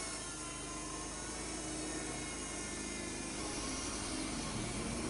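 Wood-Mizer LT35 portable bandsaw sawmill running under load, its band blade sawing a board lengthwise off a large Douglas fir cant, a steady mechanical drone.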